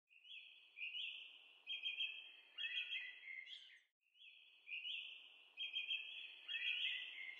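Birds chirping and trilling over a faint outdoor hiss. The same stretch of about four seconds plays twice in a row, as a looped birdsong track.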